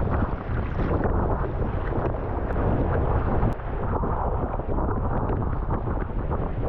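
Gale-force wind buffeting the microphone in a steady low rumble, over the wash of rough sea water.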